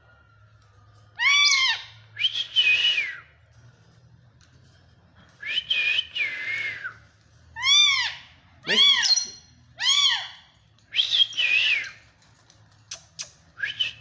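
Indian ringneck parakeet giving a series of short whistled calls, each rising and then falling in pitch, with short pauses between them. Two sharp clicks come near the end.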